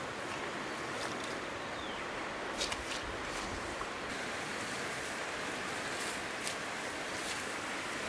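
Steady rushing of flowing water, with a few small clicks and knocks now and then.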